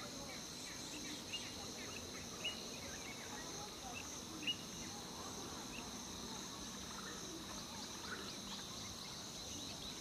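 Small birds chirping in short, falling notes over a steady, high-pitched insect chorus; a few louder chirps stand out in the first half.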